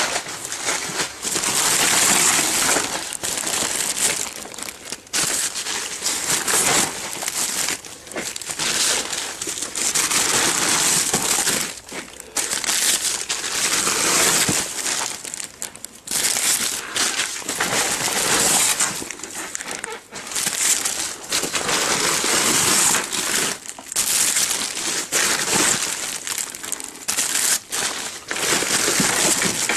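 Plastic bags and food packaging crinkling and rustling as the contents of a supermarket waste bin are rummaged through, with brief pauses.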